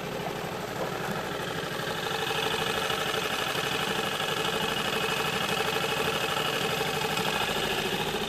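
An engine running steadily with a fast, even pulse, a little louder from about two seconds in.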